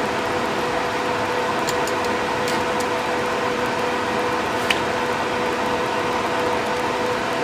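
Steady hum of spray booth ventilation fans, with a constant tone running through it. A few light clicks sound over it, the sharpest a bit past halfway.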